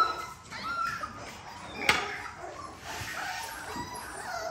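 American bully puppies whining and yipping in short, high cries at feeding time, with a single sharp knock about two seconds in.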